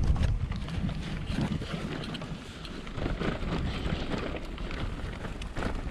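Wind buffeting the microphone while a bicycle rolls along a rough track, a rumbling noise with small scattered clicks and rattles. The rumble is heaviest in the first second.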